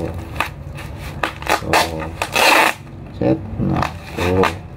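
Hands rubbing and pressing clear packing tape onto a bubble-wrapped parcel: plastic crinkling and scraping in short strokes, with one longer rubbing stroke about halfway through.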